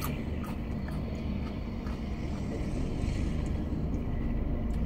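Steady low vehicle rumble heard inside a car, with a few faint short clicks of a man chewing a habanero pepper.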